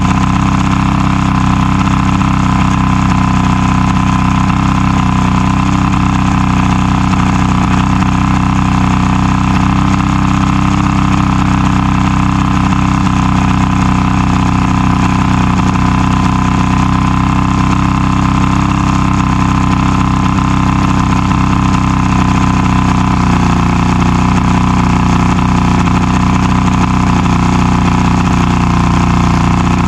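Outboard motor on a 1989 Bass Tracker boat idling steadily. It is now starting and running after a new trigger was fitted, which cured its crank-but-no-start fault.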